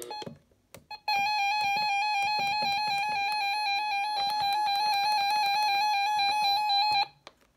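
RadioShack 12-262 weather alert radio sounding its alert tone: a steady electronic tone with a fast, slight warble. It starts about a second in, lasts about six seconds and cuts off abruptly.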